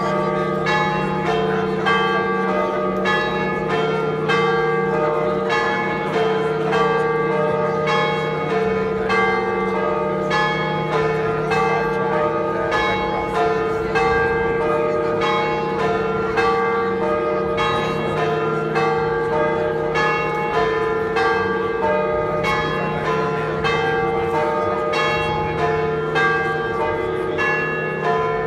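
Church bells ringing a continuous peal: several bells of different pitch are struck in quick, regular succession, about three strokes a second, over the sustained hum of their ringing.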